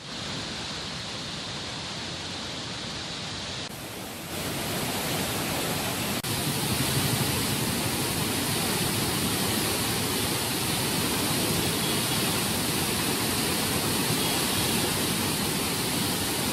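Floodwater released through dam spillway gates, churning and spraying: a steady rushing water noise that grows louder about four seconds in and then holds steady.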